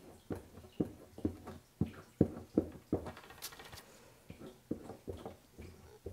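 A flat scraper laying cold wax and oil paint onto a rigid painting panel: a run of short taps and dabs, the firmest about two seconds in, with a brief scraping swish about halfway through.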